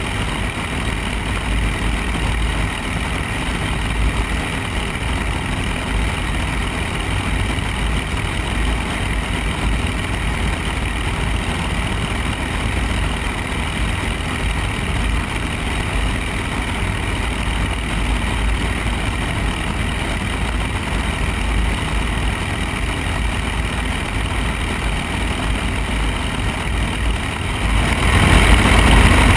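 Piper Archer III's four-cylinder Lycoming engine and propeller running steadily in flight, with rushing wind noise. The noise grows louder near the end.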